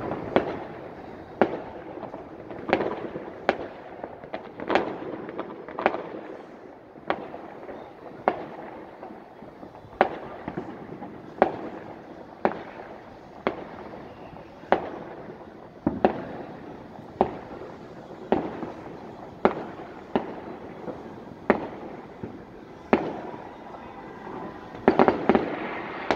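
Distant fireworks going off: a steady run of sharp bangs, about one every second or so, each trailing off in an echo, with a quick cluster of several bangs near the end.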